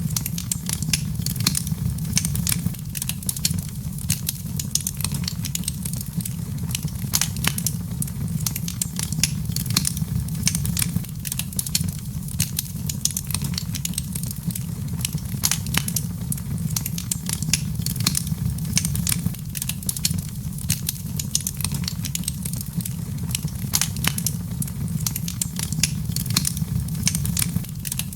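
Fire burning in a fireplace, crackling with frequent irregular sharp pops and snaps over a steady low rumble of the flames.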